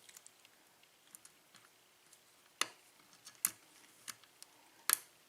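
Metal lock pick clicking and tapping on the pins inside a Kwikset six-pin cylinder lock during single-pin picking: scattered light ticks, with three sharper clicks about two and a half, three and a half and five seconds in.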